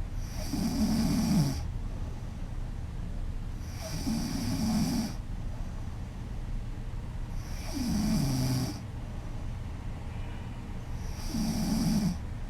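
A woman snoring loudly in her sleep: four long snores at an even pace, one about every three and a half to four seconds, each dropping a little in pitch.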